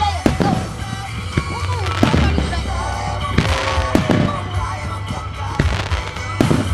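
Fireworks bursting overhead: a string of sharp bangs and crackles at uneven intervals, with music playing alongside.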